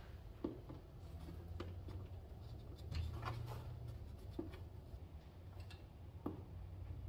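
A few faint clicks and scrapes of a screwdriver working at a stuck terminal screw on an RV tank probe, over a steady low hum.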